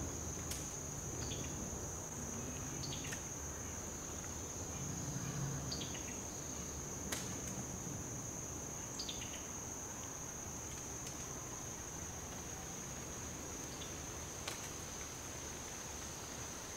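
A steady, high-pitched insect chorus: one unbroken drone, with a few faint short clicks.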